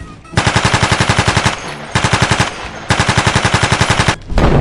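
Machine-gun fire sound effects in three rapid bursts, about a dozen shots a second, followed near the end by a deep explosion boom.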